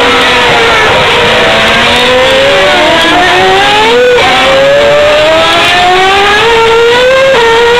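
Formula One cars' 2.4-litre V8 engines at high revs, accelerating out of a corner. The pitch climbs steadily and drops sharply at gear upshifts, about four seconds in and again near the end, with more than one engine heard at once.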